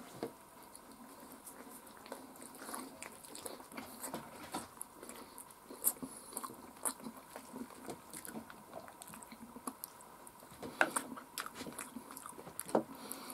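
A person chewing and eating fried chicken back pieces by hand: soft mouth clicks, smacking and small crunches, with a few sharper snaps of the meat and bones being pulled apart.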